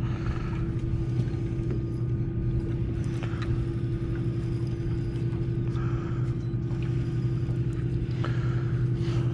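A boat's engine running steadily with an even, low hum.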